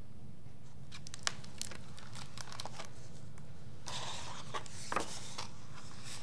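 Hardcover picture book being opened and its cover and endpaper turned by hand: a few light clicks, then a short rustling swish of the paper about four seconds in, with more small clicks just after.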